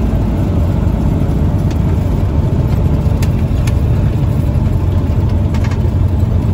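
Cessna 172S's four-cylinder Lycoming engine and propeller running steadily at low power during the landing rollout, heard from inside the cockpit. A few faint clicks sound over it.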